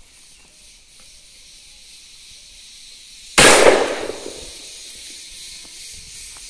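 A single shot from a sawn-off CBC 28-gauge shotgun loaded with a factory birdshot shell, fired about three and a half seconds in. The sharp report dies away over about a second.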